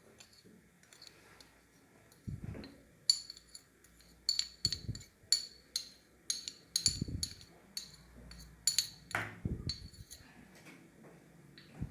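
A spoon clinking repeatedly against a bowl while dry baking ingredients are spooned in and stirred. Sharp ringing taps come one or two a second from about three seconds in, with a few soft low thuds between them.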